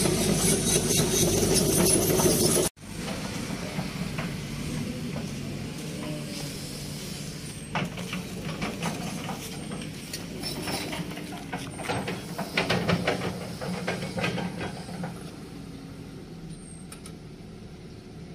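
Diesel engine of a SANY crawler excavator running loud and steady close by, cutting off suddenly about three seconds in. After the cut, excavator engines run quieter, with scattered metallic clanks and rattles that die down over the last few seconds.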